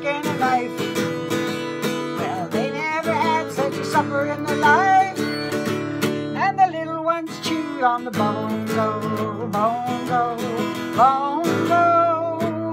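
Acoustic guitar strummed in a steady folk rhythm, with a woman singing over it.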